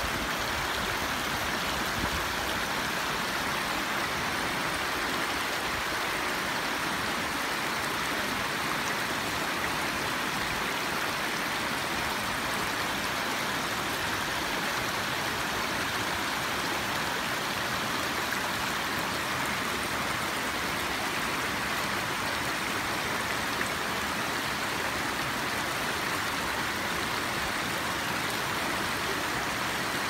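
Shallow creek rushing steadily over rock ledges and boulders, a constant even rush of flowing water.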